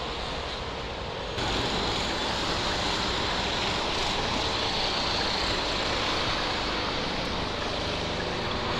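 Steady rush of road traffic and wind heard from a moving e-bike on a city street, stepping up in loudness about a second and a half in.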